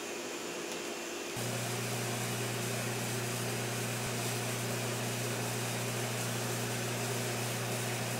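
Steady mechanical hum of kitchen equipment, a low drone under an even hiss, growing a little louder about a second and a half in.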